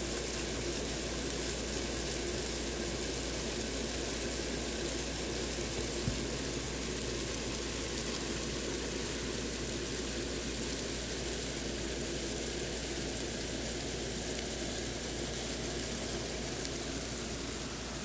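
A mass of mealworms crawling over one another in grain, giving a steady, even rustling hiss.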